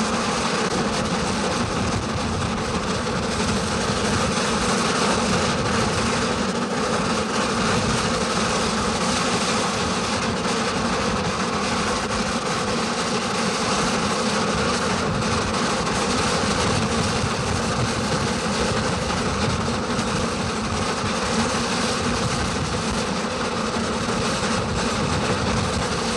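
A 3 ft gauge steam locomotive heard from its cab as it runs along the line: a steady, unbroken mix of engine and rail running noise.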